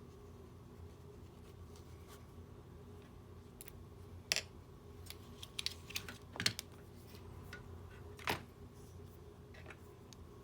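Scattered sharp clicks and light taps of small tools and parts being handled during a smartwatch repair, the loudest about four, six and a half and eight seconds in, over a steady low hum.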